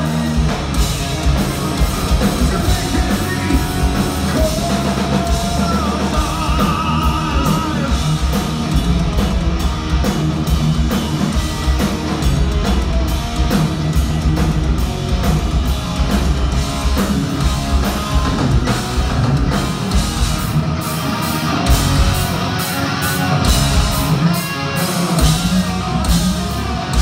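Heavy metal band playing live and loud: electric guitars and a drum kit.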